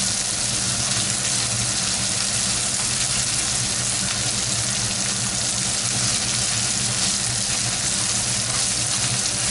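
Hamburger steak patties frying in oil in a hot pan, sizzling steadily, over a low steady hum.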